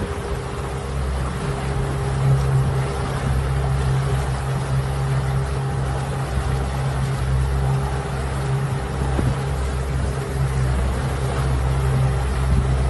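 80 hp outboard motor running steadily at cruising speed, its low hum steady throughout, with water rushing in the wake behind the boat.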